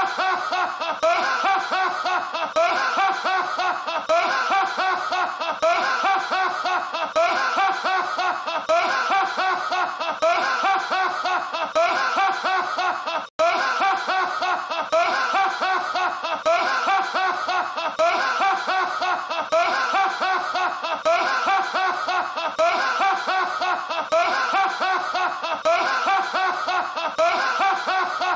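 A man's deep, hearty belly laugh going on without a break in a steady run of rhythmic laughs. About halfway through it cuts out for a split second, where the looped laugh restarts.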